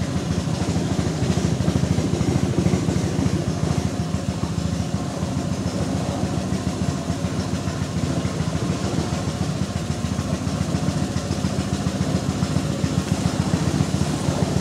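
Small boat motor running steadily at constant speed, pushing a wooden canoe through still floodwater; a dense, fast low pulsing that does not change throughout.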